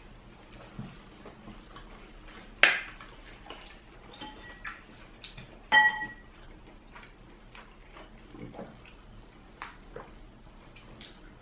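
Tableware clinking during a meal: two sharp clinks of crockery, about two and a half and about six seconds in, the second ringing briefly, among scattered small ticks and clicks of eating.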